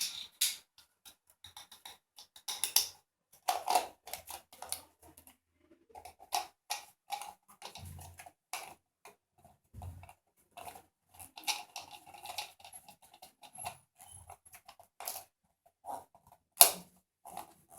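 Irregular light clicks and clacks of a grounded wall socket's plastic and metal parts being handled and fitted together, with one sharper click near the end.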